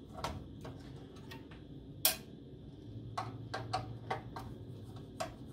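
Small sharp metal clicks and taps, irregularly spaced, from a screwdriver and tiny screws on the sheet-metal chassis and floppy drive mount as the drive's screws are taken out. The loudest click comes about two seconds in, and a faint low hum joins in the second half.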